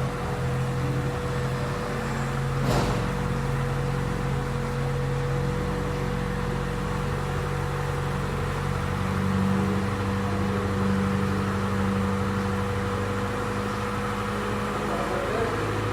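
Freshly rebuilt Honda B18C inline-four running steadily at idle just after its first start, with a single short click about three seconds in.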